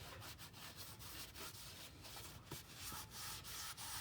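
Faint, irregular rubbing and wiping strokes from cleaning the freshly tightened oil drain plug area of the oil pan after spraying it with Windex.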